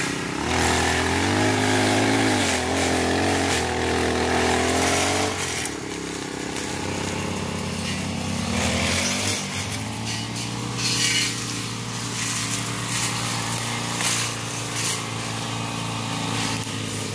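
Two petrol brush cutters running at the same time, their small engines revving up and down as the cutting heads swing through grass and brush.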